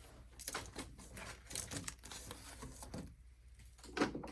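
A plastic blind-bag package being handled and torn open: irregular soft crinkles and small clicks, with a sharper tick about four seconds in.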